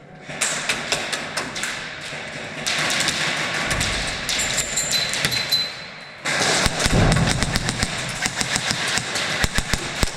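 Airsoft guns firing during close-quarters play: runs of rapid sharp cracks and knocks, sparse at first and becoming a dense, louder volley about six seconds in.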